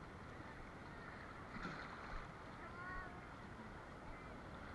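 Steady wind and surf noise at the beach, with a soft bump about one and a half seconds in and a few faint, distant high calls a little after the middle.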